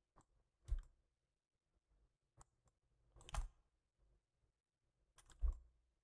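Sparse clicks from a computer mouse and keyboard. Single clicks come near the start and again in the middle, with two quick runs of clicks a little past three seconds and near the end.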